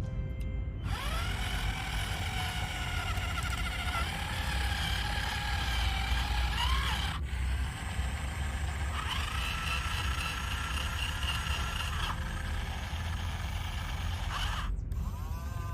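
Small electric gear motors of a remote-control toy JCB running with a steady whine. The pitch rises as they spin up after each of two abrupt breaks, over a low rumble.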